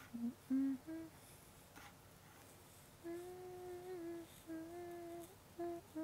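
A woman humming a tune: three short notes climbing in pitch, a pause of about two seconds, then longer held notes.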